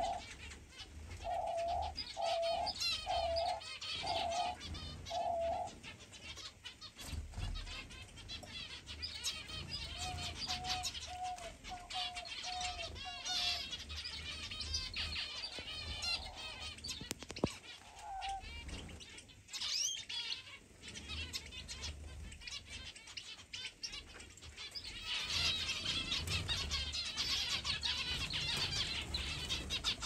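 Aviary birds calling together: canaries and zebra finches twittering and chirping, with small doves giving a run of repeated low coos in the first five seconds and a shorter run about ten seconds in. Wings flutter now and then.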